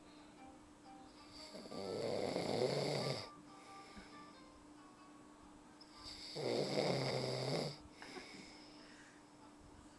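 A man snoring: two long snores, each about a second and a half, roughly four and a half seconds apart, with quiet breathing gaps between.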